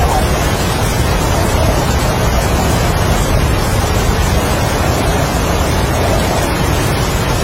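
Strong wind with heavy rain: a loud, steady rush of noise, the wind rising and falling in slow gusts.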